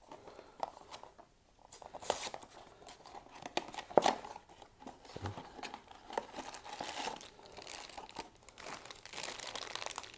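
Funko Mystery Minis blind-box packaging being torn open and crinkled by hand: irregular tearing and crinkling of cardboard and plastic wrapping, with scattered sharp clicks, the sharpest about four seconds in.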